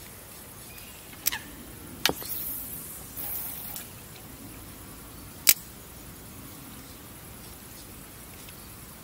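Fishing tackle handled during a cast and retrieve with a spinning rod and reel: three sharp clicks, the loudest about five and a half seconds in, and two short high hisses a little after the second click.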